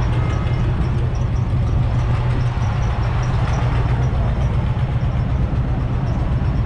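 A 1926 Case 18-32's 6.3-litre four-cylinder kerosene engine idling steadily.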